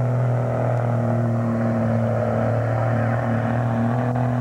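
Pickup truck engine running hard at high, nearly steady revs while pulling a weight-transfer sled.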